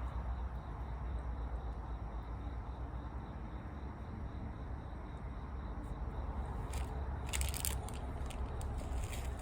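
Campfire crackling, with a cluster of sharp pops and snaps about seven seconds in and more near the end, over a steady low rumble.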